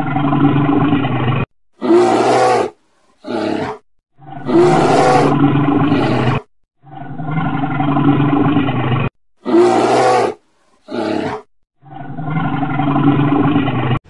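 A large animal roaring again and again: about eight separate roars, some long and some short, with clean silent breaks between them.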